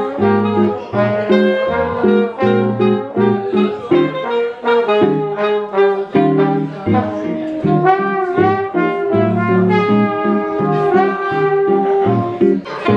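Live swing jazz from a trio of trombone, alto saxophone and guitar, the horns playing melody lines over the guitar's rhythm.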